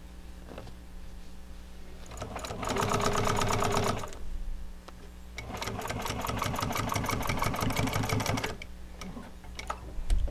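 Industrial sewing machine stitching a mitered corner seam through upholstery fabric, in two runs of about two and three seconds. Its motor hums steadily between the runs, and a low thump comes near the end.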